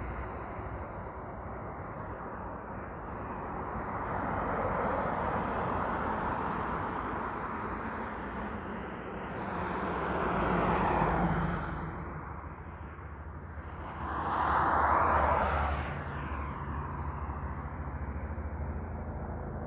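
Heavy trucks passing on a highway. Engine rumble and tyre noise swell and fade three times as each one goes by, and the last pass is the loudest.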